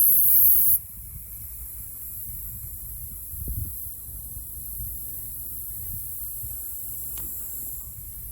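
Tsumaguro-zemi cicada (Nipponosemia terminalis) singing a continuous, very high-pitched buzz, loud for about the first second and then softer, with a low wind rumble on the microphone.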